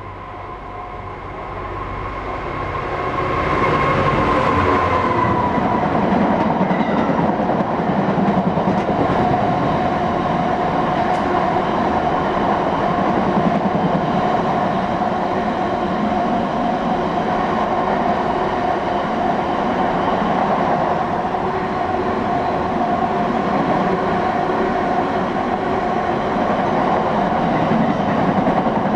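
A train approaching and running through a station: the sound builds over the first few seconds, then stays loud and steady with wheel and rail noise. A whine drops in pitch as the train draws level about four seconds in.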